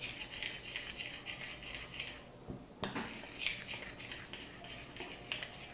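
Metal spoon stirring a soft butter and grated-cheese mixture in a glass bowl, scraping and clinking against the glass in quick repeated strokes. There is a short pause a little after two seconds, then a sharp knock, then the stirring goes on.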